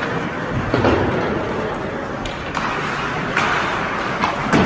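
Ice hockey game on a rink: a steady noise of skates and play on the ice, with a few sharp knocks of sticks and puck, the loudest near the end.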